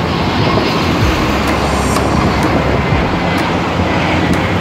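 Steady jet roar of an Airbus A320-family airliner passing low on final approach, mixed with wind buffeting the microphone.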